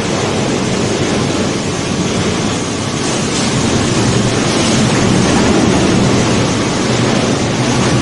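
Plastic woven-bag crushing and washing line running: the inclined belt conveyor and crusher make a loud, steady machinery noise with a low hum underneath.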